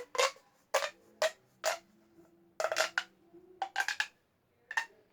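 Plastic pop tubes being stretched and squashed, the ribbed sections snapping open and shut in a string of sharp, irregular clicks and pops.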